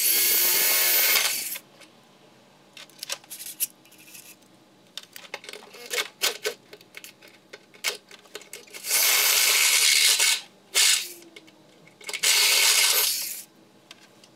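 A 1.5-inch hole saw in a power drill cutting through the sheet-steel chassis of a BMW E46. It cuts in three bursts, one at the start, one about nine seconds in and one about twelve seconds in, with scattered clicks between them.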